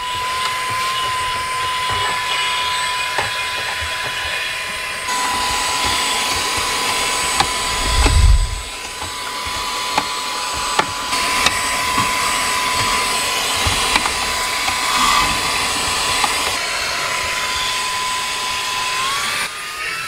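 EBOSSOM cordless handheld car vacuum running and sucking inside a car: a steady high motor whine over rushing air. Scattered clicks and a dull thump about eight seconds in; the whine steps up slightly in pitch near the end.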